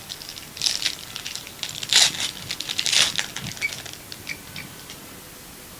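A foil trading-card pack being torn open and its wrapper crinkled, in a few crackling bursts that are loudest about two and three seconds in, followed by a few light ticks.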